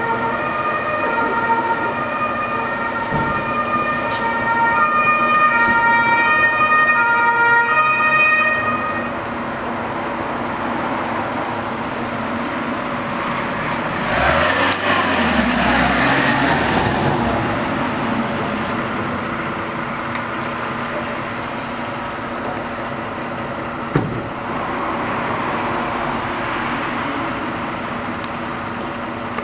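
German two-tone fire-engine siren sounding and fading away over the first nine seconds or so. About fourteen seconds in, a fire truck drives past close by, its engine and tyres rising and falling, over a steady rumble of fire engines running in the station.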